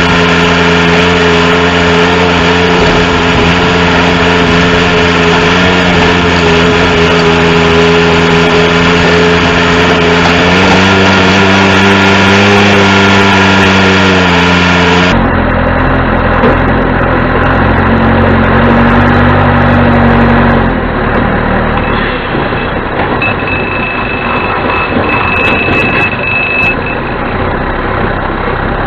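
The 1987 John Deere 210C backhoe loader's four-cylinder diesel engine running, revving up for a few seconds about a third of the way in. The engine note changes abruptly about halfway through, and a thin high steady whine is heard over it near the end.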